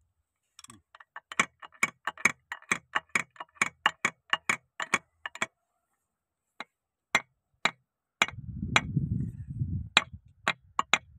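Sharp metallic clicks from hand tools working on an excavator's hydraulic swing motor during its repair, about four a second for some five seconds, then a few scattered ones. A low muffled rumble lasts about two seconds near the end.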